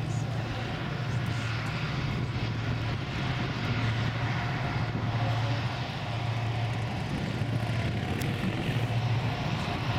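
Diesel engines of a river towboat running hard under a heavy load of barges pushing upstream, a steady low drone with the churn of its propeller wash.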